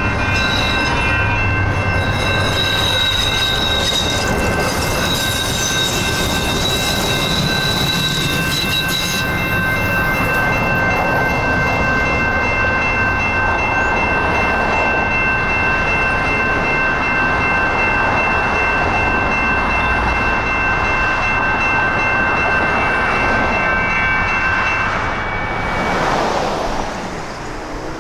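A General Signals Type 2 electronic crossing bell ringing as a steady high tone over the rumble of a train rolling through the grade crossing; the ringing stops near the end.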